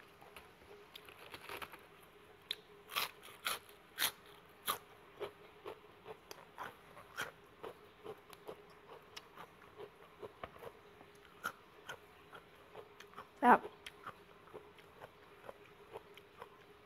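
Close-up eating sounds: crisp bites and crunching of raw vegetables, a run of loud crunches a few seconds in and the loudest single crunch near the end.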